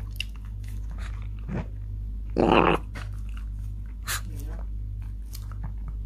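A Shih Tzu burps once, loud and short, about two and a half seconds in, right after a meal of kibble. Small mouth clicks and smacks come before and after it.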